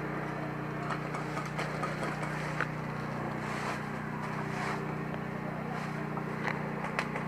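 A steady, low mechanical hum with a few faint sharp clicks scattered through it.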